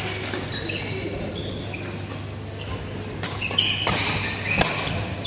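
Badminton rally: sneakers squeak in short chirps on the court mat, and about three seconds in a racket strikes the shuttlecock three times in quick succession with sharp cracks.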